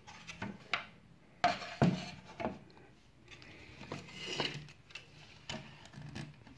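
Hard plastic cabinet parts of a toy cassette recorder being handled on a bench: a series of light knocks and clicks, with a short rubbing sound about four seconds in.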